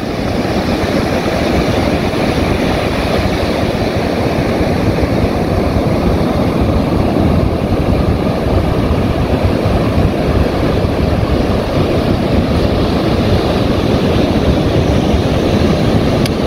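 Ocean surf breaking on the beach, mixed with wind buffeting the microphone: a steady, loud rushing rumble.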